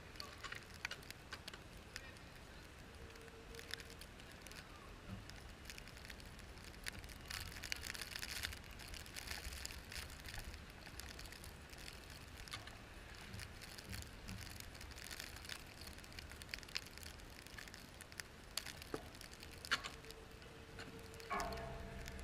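Car driving through snow: irregular crackling and ticking over a steady low rumble, with a faint steady hum that comes in briefly twice.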